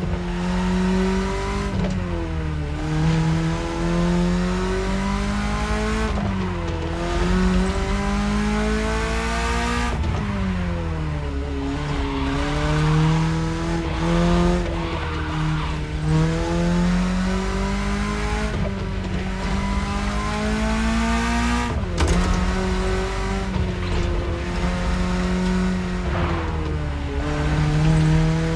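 BMW E30 engine pulling under load, its note climbing steadily and then dropping at each gear change, several times over.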